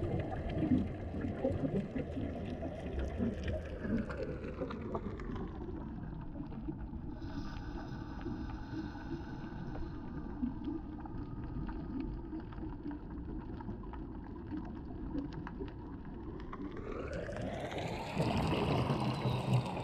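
Boat motor heard underwater: a steady low drone whose higher bands slide down in pitch over the first few seconds, stay level, then climb again near the end. Faint scattered ticks run through it.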